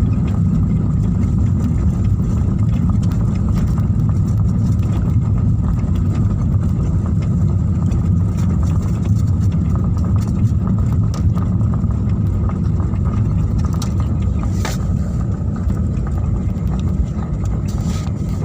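Jet airliner cabin noise: a steady low engine rumble with a faint whine over it, and one brief click about fifteen seconds in.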